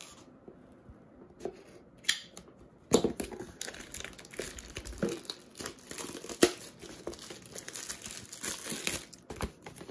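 Plastic shrink wrap being cut and peeled off a cardboard box: a few soft clicks at first, then from about three seconds in, continuous crinkling and crackling of the plastic as it is pulled away and crumpled.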